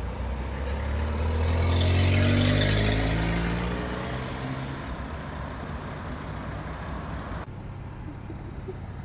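Road traffic heard from a car waiting at traffic lights. A motor vehicle passes close by, loudest about two seconds in, its engine note falling in pitch as it goes past. A steady low engine rumble follows.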